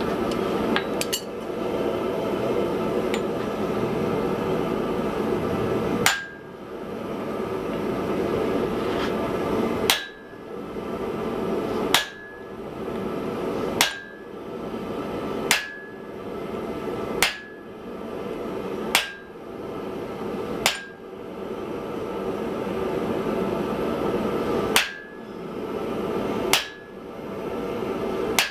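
Hand hammer striking red-hot wrought iron on an anvil: about eleven single blows, roughly one every two seconds from about six seconds in, each with a short high ring. A steady rushing noise runs underneath.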